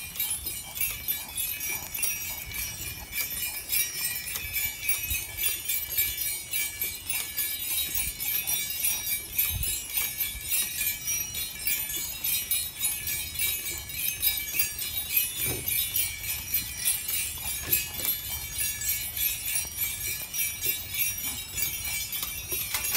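Metal jingling on a dog's collar and harness, a rapid continuous jangle as the dog keeps moving, over a low rumble of wind on the microphone.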